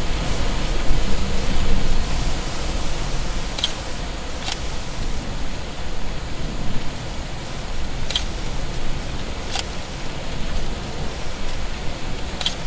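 Steady rushing storm noise with a low rumble underneath, and five sharp clicks scattered through it.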